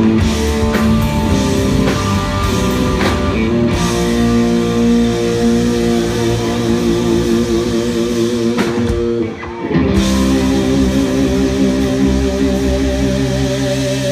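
Live rock band playing, no vocals: electric guitar holding long notes with wide vibrato over bass and drum kit. The music drops out briefly just after nine seconds, then picks up again with held notes.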